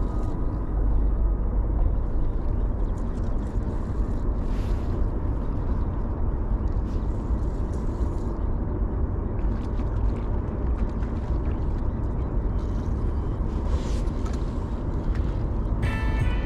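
Steady low rumbling outdoor noise with a few faint clicks scattered through it.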